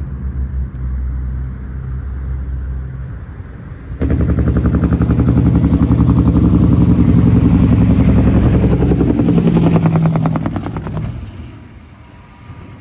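A heavy truck's engine passing close by, with a fast, even pulsing beat. It comes in suddenly about four seconds in, stays loud, and fades away near the end over the steady road rumble of the car being ridden in.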